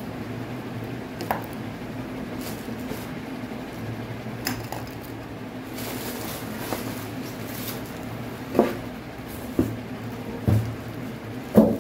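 Packaging being handled as a compound microscope is unpacked: plastic wrapping rustles and the polystyrene box and insert are moved, with scattered light clicks and a few louder knocks in the second half.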